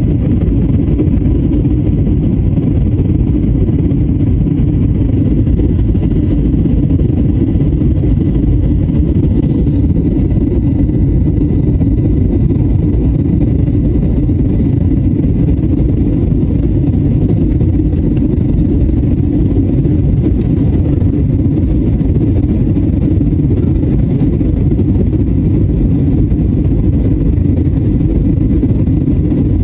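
Steady, loud roar of jet engines and rushing air inside an airliner cabin, with a faint steady whine above it.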